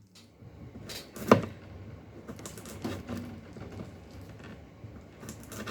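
Kitchen knife cutting a small cucumber: light, irregular taps with one sharper knock a little over a second in.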